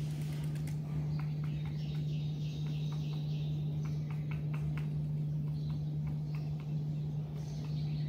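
Peacock (Indian peafowl) pecking grain from a wooden tray: a run of irregular sharp taps of its beak. Small birds chirp faintly in the background over a steady low hum.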